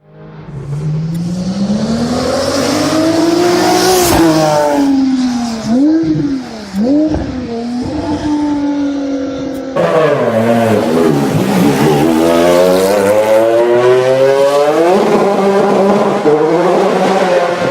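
High-performance six-cylinder car engine revving hard under acceleration. Its pitch climbs and then drops at each gear change, with quick throttle blips in the middle, and the sound changes abruptly about ten seconds in before climbing through the gears again.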